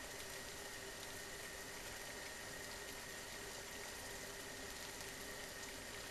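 Water in a stainless steel saucepan at 99 to 100 °C, just short of a rolling boil: a faint steady hiss with scattered small ticks, and a steady high tone underneath.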